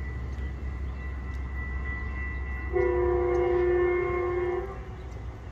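Metrolink train horn sounding one steady chord for about two seconds, starting just under three seconds in, over a steady low rumble.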